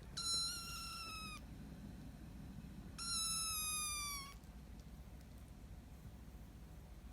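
Kitten crying twice with a high, unusual meow, each call a little over a second long and dipping in pitch at the end: the funny cry it makes when hungry and wanting food.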